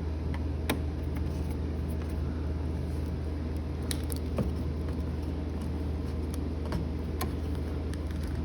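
A small screwdriver clicking and ticking against a metal screw and switch plate as the screw is turned in, a few sharp clicks spread out over a steady low hum.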